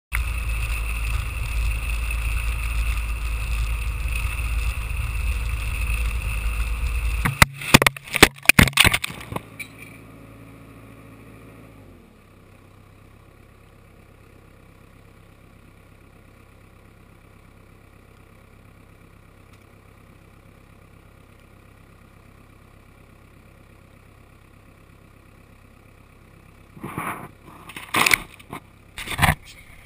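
Snowcat engine and tracks running loudly and steadily, heard close up from the cab side; about seven seconds in, a quick run of loud knocks and scrapes as the camera falls off its suction-cup mount and hits the ground. After that the engine is faint and steady, drops in pitch a few seconds later as the vehicle stops and settles to an idle, and near the end there are bumps and rustling as the camera is handled.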